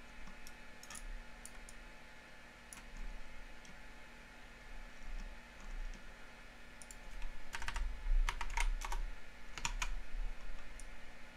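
Irregular computer keyboard keystrokes and clicks, sparse at first and then a quick cluster of them about eight to ten seconds in.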